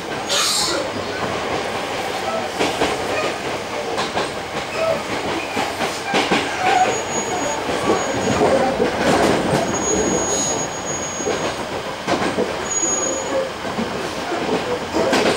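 Hankyu 8000 series electric train running, heard inside the passenger car: a steady rumble of wheels on rail with sharp clacks over rail joints. Several short, high wheel squeals come in the middle, the longest about ten seconds in.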